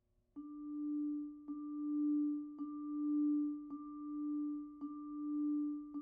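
Vibraphone played with mallets: the same note struck six times, about once a second, each stroke ringing on into the next. The loudness swells and fades between strikes.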